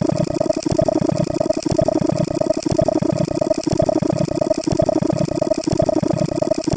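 Hundreds of copies of a camera-shutter 'take photo' sound effect playing on top of one another, merging into a loud, dense, rapid buzzing rattle.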